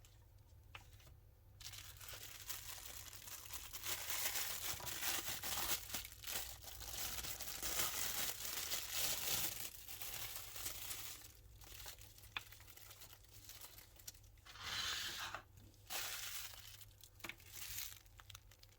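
Packaging crinkling and tearing as it is handled, in uneven bursts: a long stretch about four to ten seconds in, and a shorter loud burst near fifteen seconds, with a few sharp clicks.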